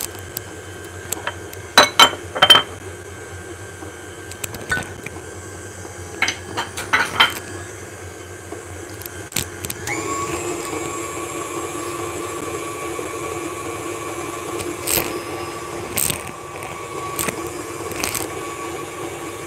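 Electric stand mixer running, beating thick cake batter with melted margarine just added, with a few sharp clicks and knocks in the first half. About ten seconds in, the motor's steady whine gets louder and holds steady.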